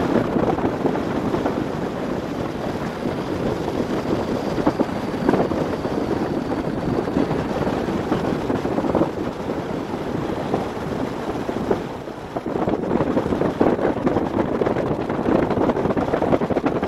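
Wind buffeting the microphone over the steady running noise of a river boat under way.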